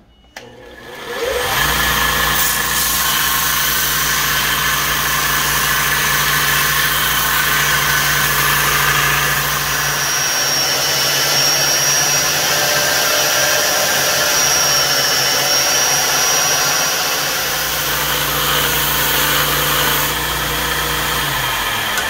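Belt grinder motor spinning up about a second in, then running steadily while its abrasive belt grinds a small piece held against it. A high whine comes in partway through, and the machine spins down near the end.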